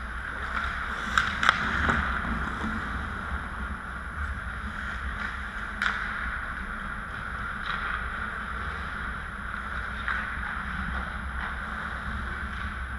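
Ice hockey rink sounds: skate blades scraping and carving the ice in a steady hiss, with a low rumble under it. Sharp clacks of sticks and puck cut through, the loudest two about a second and a half in, others near six and ten seconds.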